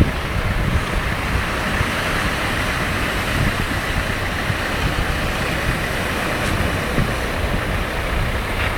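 Wind buffeting the microphone in gusts over the steady rush of surf breaking on the beach.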